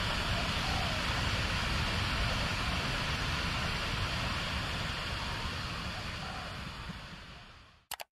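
Steady rushing noise that fades out near the end, then two short clicks just before it cuts to silence.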